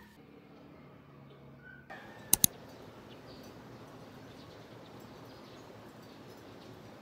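Steady outdoor background noise with two sharp clicks in quick succession about two and a half seconds in; before that, a quieter stretch with a faint low hum.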